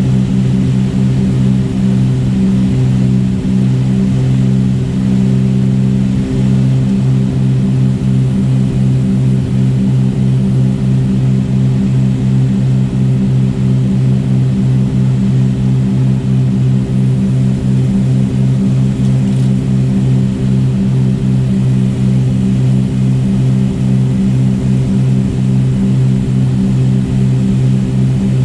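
Twin piston engines and propellers of a Cessna 310R running steadily in cruise flight, heard inside the cabin as a loud, even drone with a fast, regular throb.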